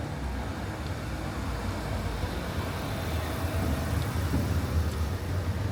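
A motor vehicle's engine running, a steady low rumble that grows slightly louder toward the end.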